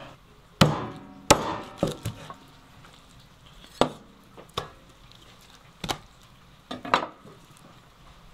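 Knife chopping a raw rabbit carcass into pieces: a run of sharp chops, four close together in the first two seconds, then single chops about a second apart.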